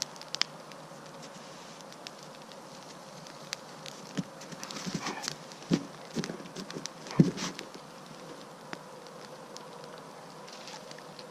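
Campfire crackling with scattered sharp pops and a few louder knocks about halfway through, over a faint steady whine.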